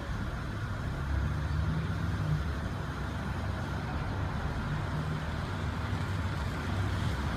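Steady low mechanical rumble with a hum, growing louder about a second in.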